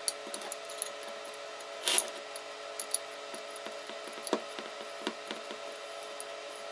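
A hex key clicking and clinking against socket-head screws as they are turned into a metal frame plate: scattered small metallic clicks, with a louder short rattle about two seconds in, over a steady faint hum.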